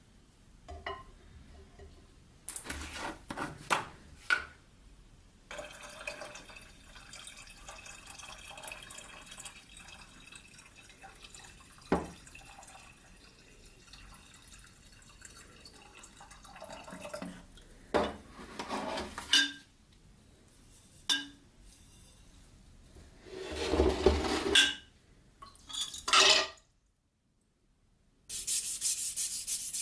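Intermittent clinks, knocks and handling sounds of hard objects such as metal or glass, with some liquid sounds. Near the end there is a brief silence, then a steady rubbing or scraping starts.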